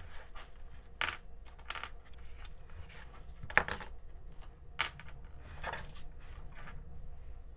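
Small plastic parts bag crinkling as it is handled, and a few small black metal screws tipped out of it, clicking onto a cutting mat; the sharpest click comes about three and a half seconds in.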